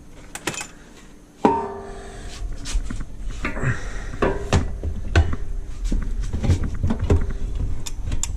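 Metal parts of a mud-motor kit clanking and knocking as they are handled and fitted, with one ringing metal clang about a second and a half in, then a run of sharp knocks and clicks.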